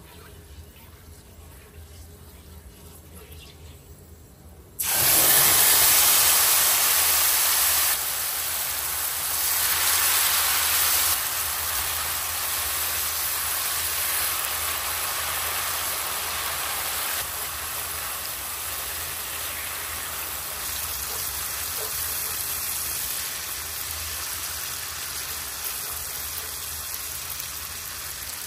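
Hot oil in a steel cooking pot starts sizzling loudly all at once about five seconds in, as a wet ingredient hits it, then keeps frying with a steady hiss that slowly grows quieter.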